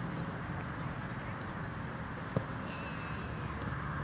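Outdoor ambience of a field: a steady hiss with a low rumble under it, one sharp knock about two and a half seconds in, and a faint high wavering chirp just after.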